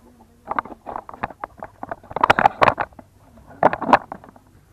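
A run of sharp knocks and thuds, loudest in a cluster around the middle and again near the end, as a green young coconut is struck and handled on the dirt ground.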